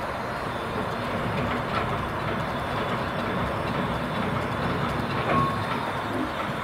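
An engine running steadily, with a few light metallic clinks.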